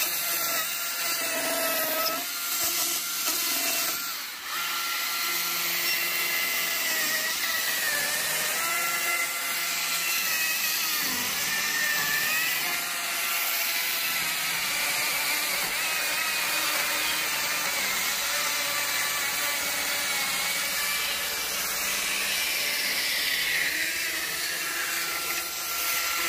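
Small battery-powered Husqvarna chainsaw running and cutting into a wood block, its steady high whine dipping in pitch several times as the chain loads up in the cut and then recovering.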